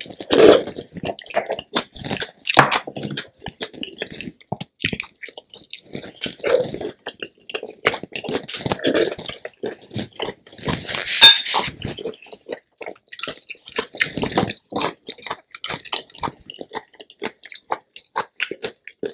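Close-miked eating: chewing, wet lip smacks and sucking of spicy boil sauce off the fingers, in many short irregular clicks. A louder wet burst comes just past the middle.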